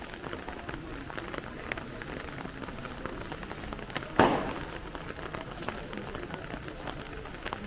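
Rain falling on surfaces, with scattered small drips and ticks, and one loud sharp bang about four seconds in that rings out briefly.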